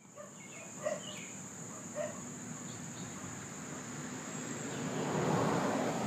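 Steady high-pitched insect trill, like a cricket, over outdoor background noise that swells after about five seconds, with two brief chirps about one and two seconds in.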